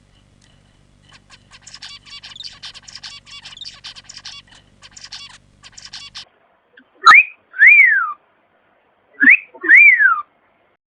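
Pet bird chattering in fast, high twitters, then a loud pet-bird whistle repeated twice. Each whistle is a sharp upward note followed by a note that rises and then slides down, like a wolf whistle.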